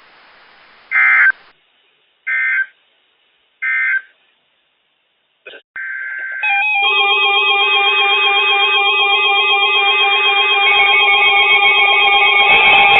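NOAA Weather Radio EAS end-of-message data bursts: three short, identical buzzy digital tone bursts about a second and a half apart, marking the end of the alert. About six seconds in, a steady tone starts, then a sustained layered electronic tone sound that keeps going.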